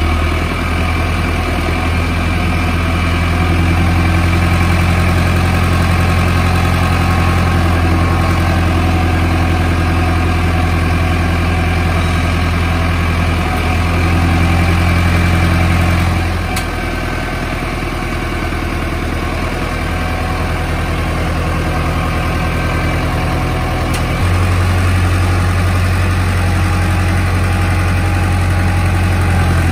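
Mahindra Arjun NOVO 4x4 tractor's diesel engine idling steadily. Its note dips slightly about halfway through and comes back up near the end.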